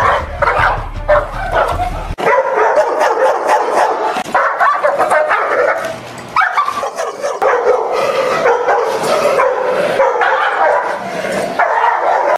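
Dogs barking in rapid, repeated bursts, agitated and aggressive. A low rumble under the barking cuts off abruptly about two seconds in, where the footage changes.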